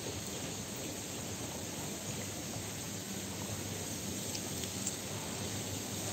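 Steady hissing outdoor background noise with a faint low machine hum underneath and a few light ticks.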